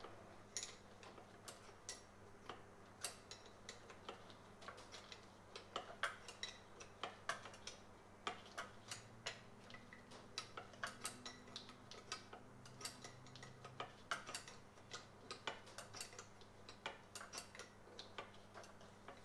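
Faint, irregular metallic clicks and light taps of hand tools and parts as the fuel pressure regulator is unbolted from its saddle and slid out.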